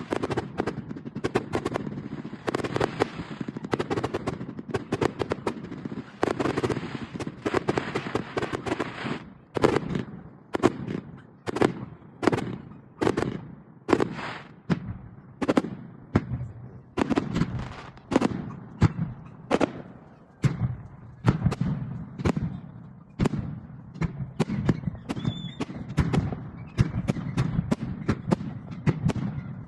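Fireworks salute going off: a dense, rapid string of overlapping bangs for about the first nine seconds, then separate booms at roughly one a second, each trailing off.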